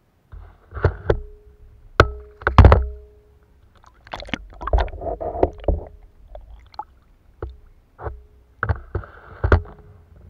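Water splashing and sloshing around a kayak-mounted action camera as it dips underwater. About a dozen sharp knocks, several followed by a brief ringing tone, over a heavy low rumble.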